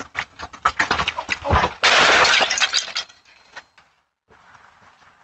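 A wooden cabinet knocking and clattering as it is handled, then a loud breaking crash about two seconds in that lasts about a second.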